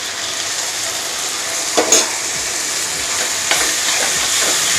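Okra gravy of onion and spiced curd, with a little water just added, sizzling steadily in a hot pan while a ladle stirs it, clanking against the pan once about two seconds in and scraping a few more times near the end.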